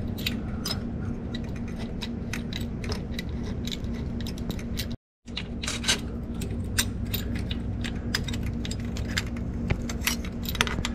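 Irregular light metallic clicks and scrapes as a steel GM starter shim is slid into place under the starter's mounting bolt with a long magnetic pickup tool, over a steady low hum. The sound cuts out briefly about five seconds in.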